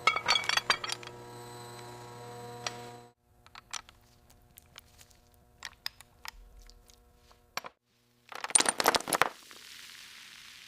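Light metallic clinking and clattering in separate short bursts. The first burst sits over a steady machine hum; sparse clicks follow, then a louder dense clatter about three-quarters of the way in, and a steady hiss near the end.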